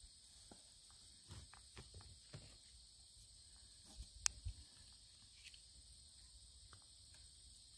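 Near silence: a faint steady high hiss, with scattered soft rustles and clicks and one sharp click a little past four seconds in.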